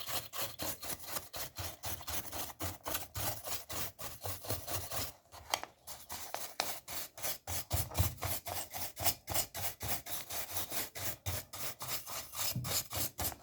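A large brush scrubbing dust out of the inside of a plastic remote control's back cover. It makes quick, scratchy back-and-forth strokes, about three or four a second, with a short pause about five seconds in.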